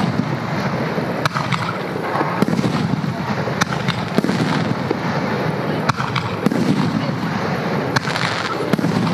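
Aerial firework shells bursting overhead, a sharp bang about once a second over a steady rumbling wash of sound.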